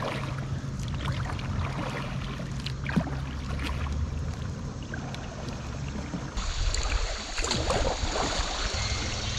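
Kayak paddling on a river: paddle blades dipping and water lapping against the Eddyline kayak's hull, with a few small splashes. After about six seconds the rush of moving water gets louder.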